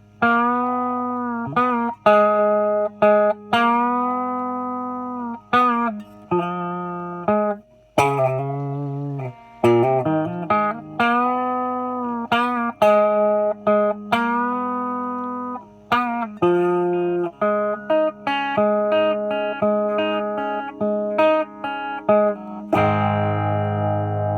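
Epiphone 1959 Les Paul Standard reissue electric guitar on its bridge pickup, played through an Orange amp with a clean tone: a run of single sustained notes with string bends and vibrato, ending in a held chord. The player thinks the bridge pickup sounds a little microphonic.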